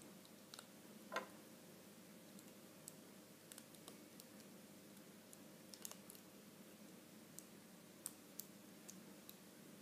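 Faint, scattered clicks of a hook and rubber loom bands against the pegs of a small clear plastic four-peg loom as loops are lifted over, with one louder click about a second in.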